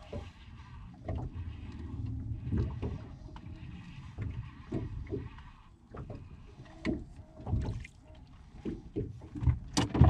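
Wind buffeting the microphone and water slapping a small boat's hull, with irregular clicks and knocks while a fish is reeled in on a rod and reel, and one sharp click near the end.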